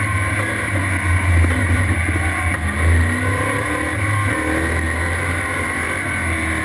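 Race car engine running hard at speed on an autocross course, a loud, fairly steady drone that swells briefly about a second and a half and three seconds in.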